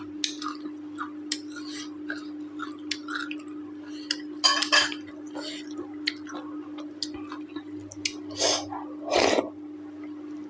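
Close-up eating sounds: chewing and mouth smacking with light clinks against a plate, and a few louder noisy bursts about halfway through and near the end, over a steady low hum.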